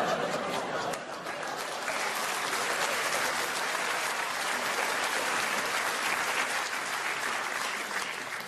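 Live audience applauding, a steady round of clapping that dies down at the end.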